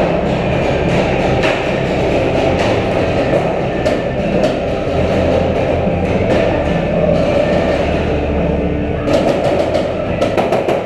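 Paintball markers firing single shots every so often, then a quick burst of rapid shots near the end, over a steady low rumble with music in it.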